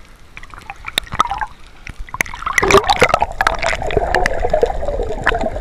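Water and bubbles around a breath-hold diver, recorded underwater: scattered clicks at first, then from about two seconds in a louder, busy bubbling and crackling as the diver swims down.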